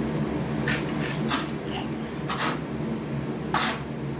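Trowel scraping across a wet deck-mud mortar bed in four short, irregular strokes, over a steady low hum.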